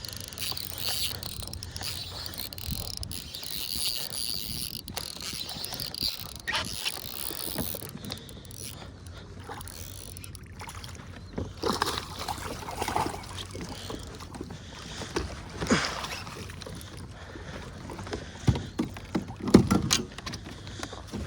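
A bait-finesse casting reel being wound in while a hooked bass is fought up to a kayak. There is a steady mechanical whir from the reel early on, then scattered knocks against the kayak, which are loudest near the end.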